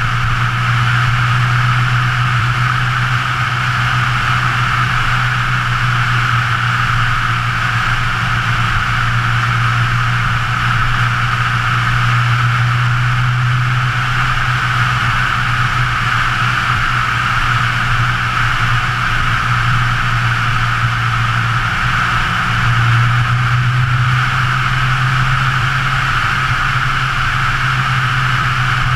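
A 2013 Scion FR-S's 2.0-litre flat-four engine droning steadily at cruising speed under a steady hiss of wind and road noise, with a brief dip in the engine note about three-quarters of the way through.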